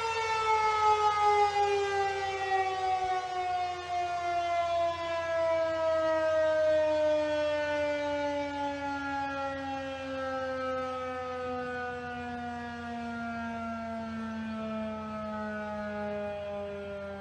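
Federal Signal 2001 rotating tornado siren winding down after its test: one long falling tone that slides from a high wail to a low drone, its loudness wavering as the head rotates and slowly fading.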